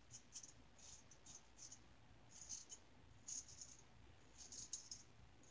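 Faint short scrapes of a single-edge safety razor blade cutting stubble through lather, in separate strokes a fraction of a second long, about one or two a second.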